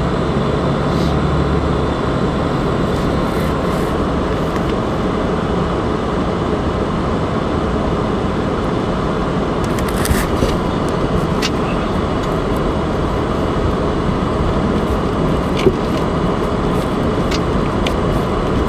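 A car driving slowly over snow and ice, heard from inside the cabin: a steady rumble of engine and tyres, with a few light knocks, the sharpest a few seconds before the end.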